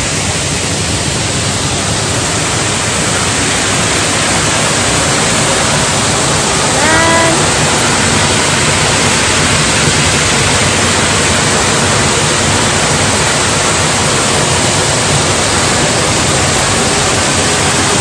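Man-made waterfall close by, its water pouring down and splashing into the pool below as a loud, steady rush.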